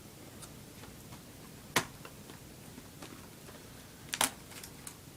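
Sharp plastic clicks and light ticks as a laptop keyboard is pried free of its retaining clips: one loud click about two seconds in and a quick double click near the end.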